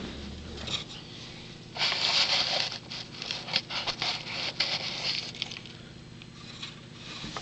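A kitten nosing and rubbing against a camera on the carpet: close scraping and rustling on the microphone with scattered clicks, from about two seconds in until about five seconds.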